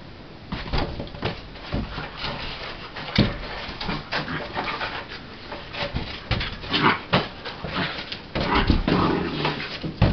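A Blue Heeler–Border Collie mix puppy tussling with a large tennis ball on a tile floor: a busy run of scrabbles, clicks and sharp knocks, with whimpering play noises from the puppy. The loudest knocks come about three seconds in and near the end.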